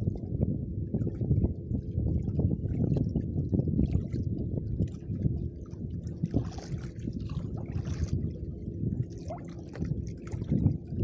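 Water sloshing and lapping against a small fishing boat's hull, with a constant low rumble and scattered small splashes.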